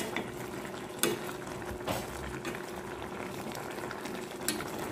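Coconut-milk fish stew bubbling at a boil in a pan, with a steady faint hum underneath. There are a few light knocks of the ladle against the pan: about a second in, near two seconds, and near the end.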